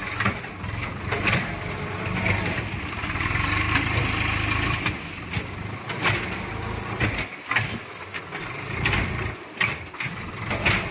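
Swaraj 744 tractor's diesel engine running steadily, working a little harder between about two and five seconds in, as it creeps forward in first gear with its loaded trolley tipped up on the hydraulics. Sharp knocks and clicks come about once a second over the engine.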